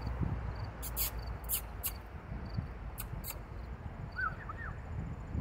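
Evening ambience by the tracks: a steady low rumble under a faint insect tick that repeats about twice a second. A few sharp high chirps come in the first half, and short rising-and-falling bird chirps come near the end.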